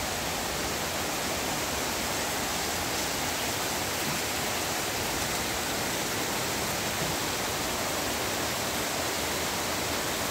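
Heavy rain pouring down steadily, an unbroken even rush of water.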